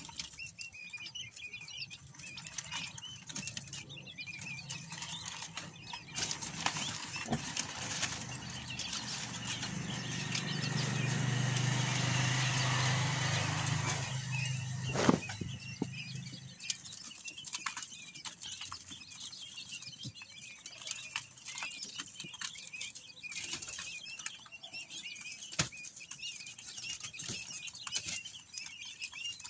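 A brood of quail chicks peeping constantly, with light scratching and pecking ticks and brief wing flutters as they jostle around a dish. In the middle a louder rushing noise with a low hum swells and fades, ending in one sharp click.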